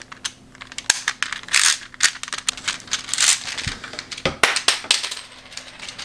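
Plastic rotating-disc puzzle toy being twisted by hand: a rapid, irregular run of clicks with a few longer rasps as the discs turn against each other.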